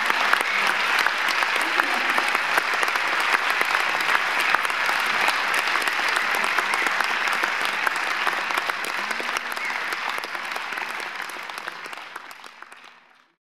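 Audience applauding, a dense patter of many hands clapping, which fades out near the end.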